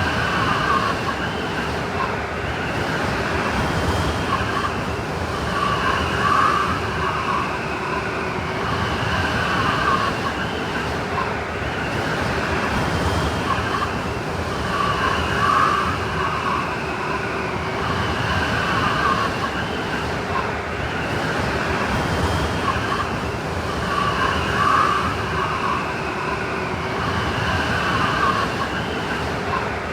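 Blizzard sound effect: steady wind with a wavering, whining howl that swells in gusts about every nine seconds.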